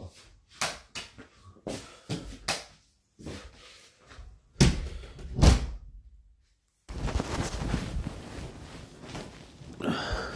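A string of short knocks and thuds, the heaviest two about four and a half and five and a half seconds in. From about seven seconds in, a steady close rustling and rubbing as the phone is handled and picked up.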